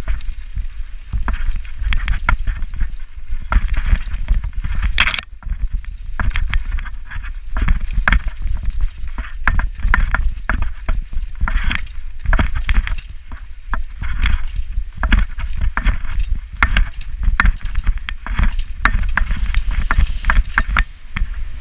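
Full-suspension mountain bike clattering and rattling as it rides fast down a leaf-covered dirt trail, with many irregular knocks and one sharp knock about five seconds in. Heavy wind rumble on a helmet-mounted camera's microphone runs under it.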